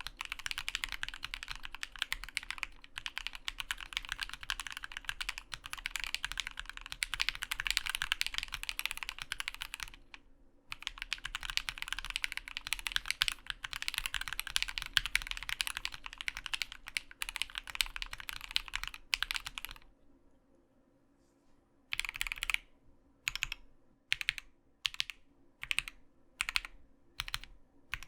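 Fast typing on a custom mechanical keyboard with lubed, filmed C3 Tangerine v2 linear switches in an acrylic plate and stacked acrylic case, under PBT keycaps. Two long runs of rapid keystrokes with a short break between them, then a brief pause and single key presses spaced about two-thirds of a second apart.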